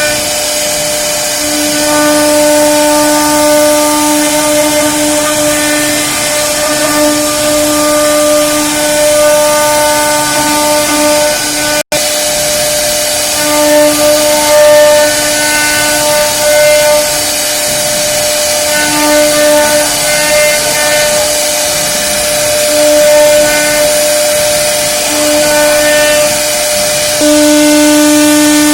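CNC router spindle running at a steady pitch while cutting wood, its whine swelling and fading as the cutter's load changes, over a constant hiss of cutting. The sound breaks off for a moment about twelve seconds in.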